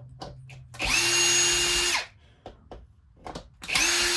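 Cordless drill-driver running in two short bursts of about a second each, spinning up and stopping, as it backs out small screws from a vacuum cleaner's plastic housing. Faint clicks of handling come before the first burst.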